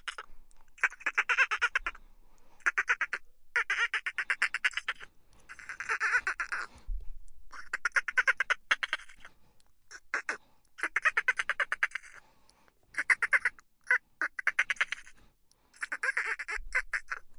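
Dolphin burst-pulse chatter: a dozen or so short bursts of rapid clicks, each lasting under a second to about a second and a half, with brief pauses between them.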